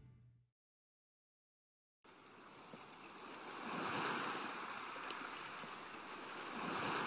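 Ocean surf washing onto a beach: after a brief silence the waves fade in about two seconds in and swell twice, about three seconds apart. At the very start, the last low note of music dies away.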